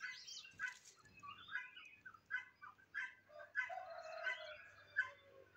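Egyptian geese calling: a quick series of short honks, with one longer call about four seconds in.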